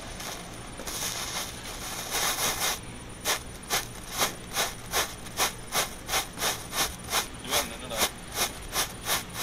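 Camera flash firecracker going off: a hiss of burning for a couple of seconds, then evenly spaced sharp cracks, about two and a half a second, one with each flash.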